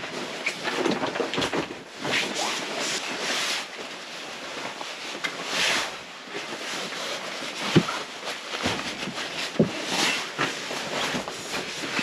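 Rustling and swishing of fabric and bedding being handled and spread out over camp cots, with a couple of sharp knocks in the second half.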